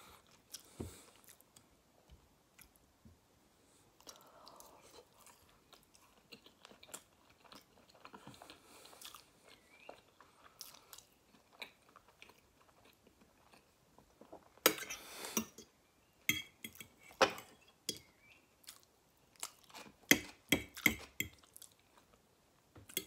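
Close-miked chewing and wet mouth sounds of someone eating soft food (meatloaf, boiled baby potatoes and coleslaw), with soft scattered clicks. A louder noisy burst comes a little past halfway, followed by a run of sharper clicks.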